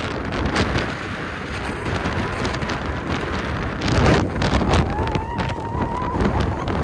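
Strong mountain wind buffeting the phone's microphone in gusts, with a heavy gust about four seconds in. A thin high tone holds for about a second near the end.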